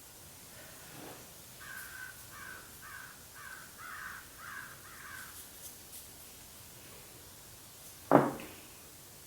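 A crow cawing, about seven harsh caws in quick succession, roughly two a second. Near the end comes a single sharp knock, louder than the caws.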